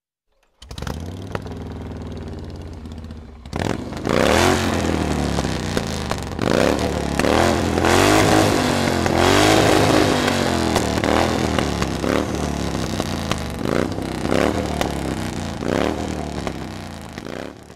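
Motorcycle engine idling, then revved again and again from about three and a half seconds in, each rev rising and falling in pitch.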